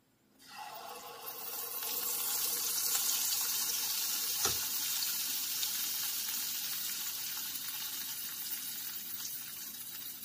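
Appam batter sizzling in hot groundnut oil as a ladleful goes into a steel pan: the hiss starts suddenly, swells over a second or two and then holds steady, easing slightly near the end. One short tap about four and a half seconds in.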